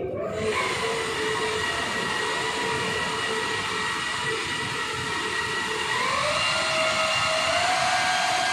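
Electric car polisher with a foam pad running against the paint of a car's hood, a steady motor whine that steps up in pitch about six seconds in and again near the end.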